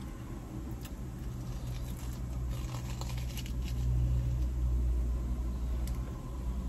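Low, steady vehicle rumble heard from inside a parked car, swelling about four seconds in and easing off again, with a few faint crunches and clicks of biting into a sugar-coated corn dog.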